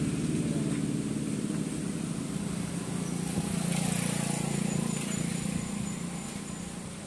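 A road vehicle's engine running nearby, a steady low hum that slowly fades over the last few seconds as it moves off.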